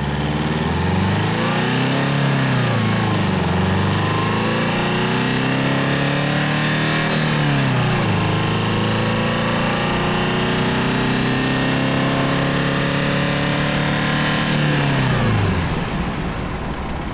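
Audi A4 B8 2.0 TDI four-cylinder turbodiesel engine accelerating. The revs climb, fall back about three seconds in, climb and hold, dip briefly about eight seconds in, pull steadily again, then fall back to idle near the end.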